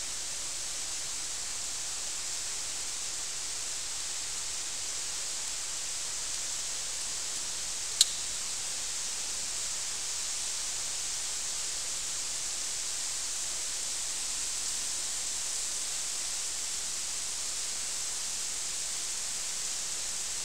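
Steady hiss of water falling and splashing down the rock walls of a pothole shaft. One sharp click about eight seconds in.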